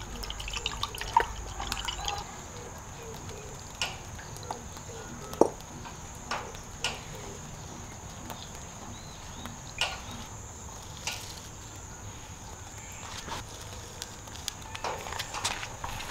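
Water sloshing in a glass pitcher, then poured from it onto potted seedlings, with scattered drips and splashes.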